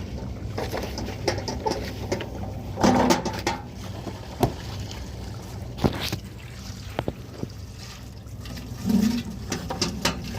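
Water running and splashing while vacuum cleaner parts are washed, with knocks of the parts being handled, over a steady low hum.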